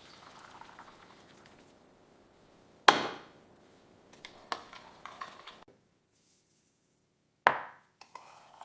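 Kitchen clatter of cooking utensils: two sharp knocks, about three and seven and a half seconds in, each ringing off briefly, with a few lighter clicks between them and a dead-silent gap before the second knock.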